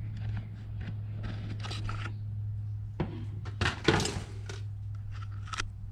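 Light clicks, taps and rustles of handling on a workbench, with a louder clatter of knocks a little before the middle, over a steady low electrical hum.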